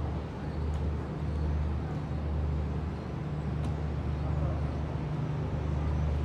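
Steady low mechanical rumble with a constant hum, under general background noise.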